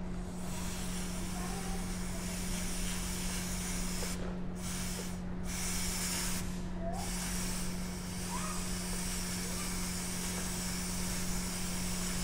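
Aerosol chain lube spraying onto a motorcycle's drive chain to lubricate it after cleaning. It is a long continuous hiss, with three brief pauses between about four and seven seconds in.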